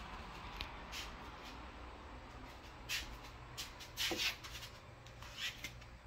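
Scattered light clicks and rustles of handling noise, with the loudest cluster about four seconds in, over a faint steady room hum.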